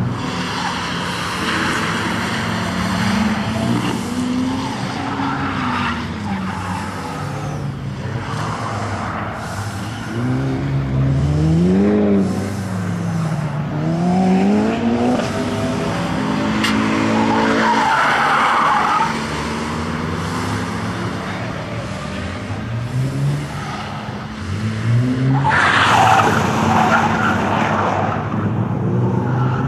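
Ford Focus RS Mk1's turbocharged 2.0-litre four-cylinder engine revving up and dropping back again and again as the car accelerates, shifts and brakes, with bursts of tyre squeal through the corners, the loudest near the end.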